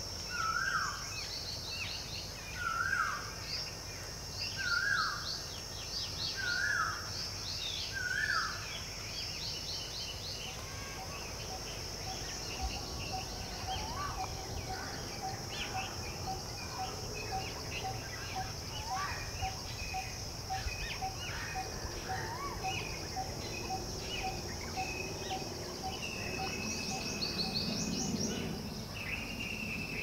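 Mixed woodland birdsong. A loud hooked call repeats about every two seconds, five times, in the first nine seconds. After that a long series of soft, evenly spaced notes at about two a second runs through the middle, while higher chirps and twitters go on throughout.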